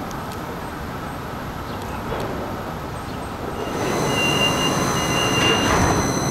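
Hudson-Bergen Light Rail car (Kinki Sharyo light rail vehicle) running: a steady rumble that grows louder about two-thirds of the way in, joined by a steady high whine and two short high-pitched wheel squeals.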